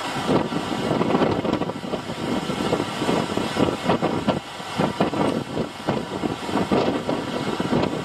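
Fishing boat's engine running at sea in strong wind, its steady drone mixed with gusting wind and water noise.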